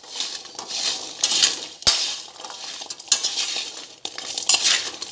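Chestnuts stirred in coarse salt in a wok with a metal spoon: the salt and nuts rustle and scrape in repeated swishes as they are turned, and the spoon knocks sharply against the pan once, about two seconds in.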